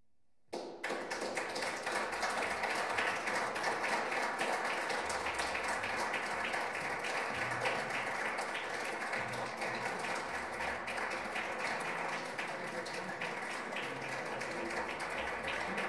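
Concert audience applauding, starting suddenly about half a second in and going on steadily.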